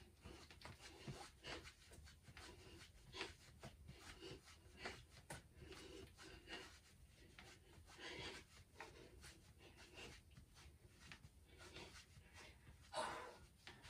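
Near silence with faint, irregular rustling and breathing from a person doing a standing arm-swing workout.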